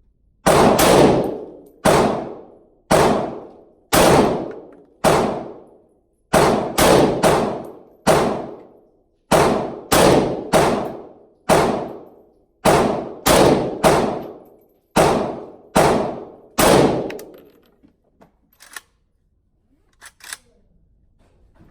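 Palmetto State Armory GF3 AK-47 in 7.62x39 fired semi-automatically, about fifteen shots at an uneven pace of roughly one every half-second to second, each with a short ringing tail. The firing stops and a few light metallic clicks follow near the end.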